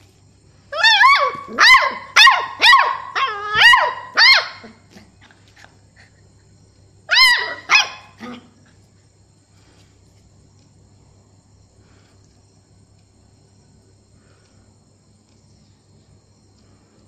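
Two-month-old beagle puppy barking: a quick run of about eight high-pitched yapping barks, then two or three more a few seconds later.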